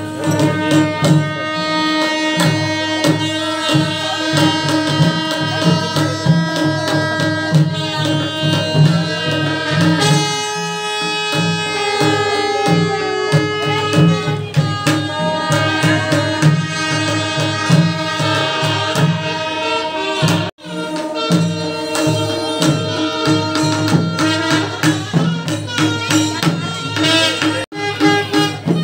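Music: drums beating a steady rhythm under long held melodic notes, breaking off suddenly for an instant twice in the last third.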